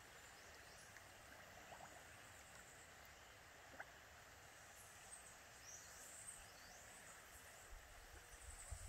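Near silence: faint outdoor background, with a few faint high chirps past the middle and a low rumble creeping in near the end.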